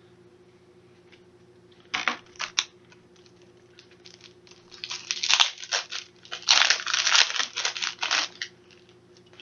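Wrapper of a football card pack being torn open and crinkled by hand: a few short rips about two seconds in, then a longer spell of tearing and crinkling from about five to eight seconds.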